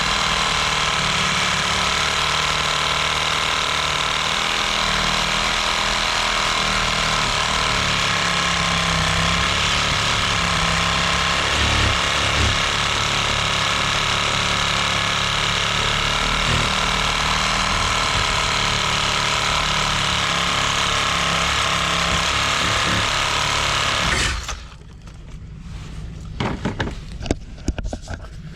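An electric power tool's motor running steadily under load, cutting off abruptly near the end, followed by a few knocks and clatter.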